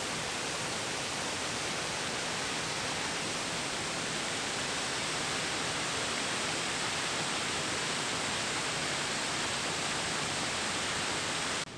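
Waterfall of several cascades, its water falling and rushing in a steady, even hiss that stops abruptly near the end.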